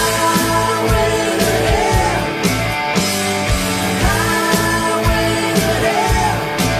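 Hard rock music with drums and electric guitar, a singer's voice held on sustained notes over it.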